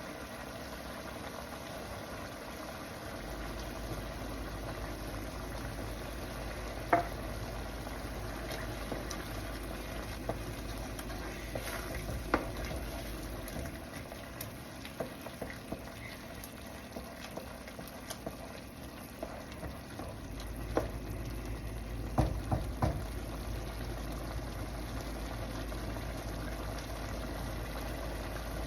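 Sliced mushrooms and tomatoes sizzling in oil in a karahi as their released water cooks off, stirred with a spoon that clinks sharply against the pan a few times.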